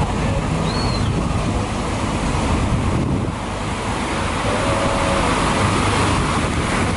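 Ocean surf breaking and washing in whitewater, with wind rumbling on the microphone.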